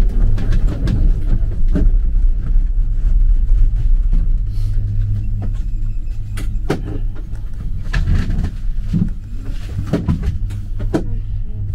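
Steady low rumble and hum inside a detachable gondola cabin as it leaves the station and rides along the cable. Scattered short clicks and knocks come through, more often in the second half.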